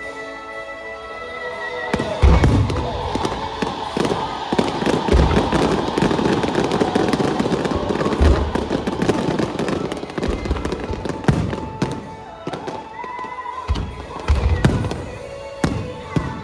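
Aerial fireworks shells bursting: deep booms with dense crackling from about two seconds in until about twelve seconds, then a few more booms near the end. Music plays underneath.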